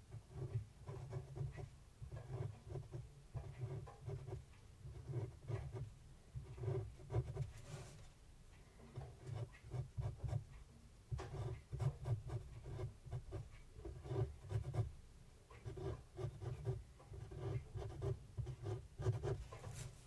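A fine-tip pen drawing on paper close to the microphone: many short, irregular scratching strokes as small doodle patterns are inked.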